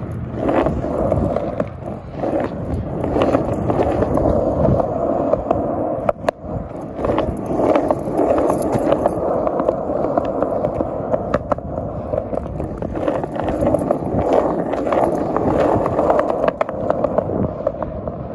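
Skateboard wheels rolling along a concrete sidewalk, a continuous gritty rumble broken by sharp clicks here and there.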